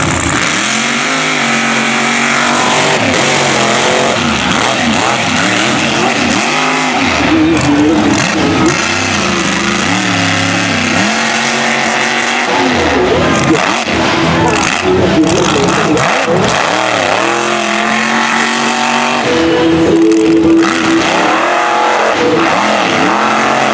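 Mega truck engine revving hard on and off the throttle as it races over the dirt course, its pitch climbing and dropping over and over, held higher and steadier near the end.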